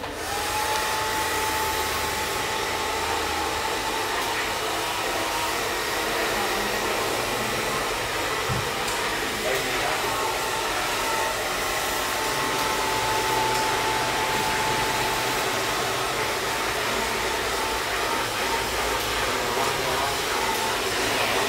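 Handheld hair dryer blowing steadily: a constant rush of air with a faint motor whine, starting abruptly at the beginning.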